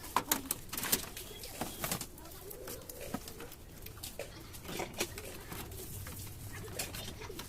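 Irregular sharp clicks and taps, several close together near the start and more about two and five seconds in, over a faint low warbling background.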